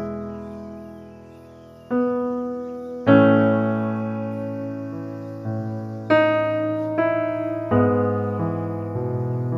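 Background piano music: slow, gentle chords struck every second or two, each one ringing and fading before the next.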